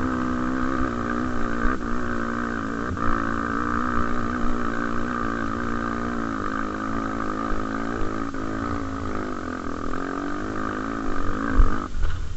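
Honda XR250 Tornado's single-cylinder four-stroke engine running under way at fairly steady revs, its pitch wavering a little, with a few short clicks. The sound cuts off suddenly near the end.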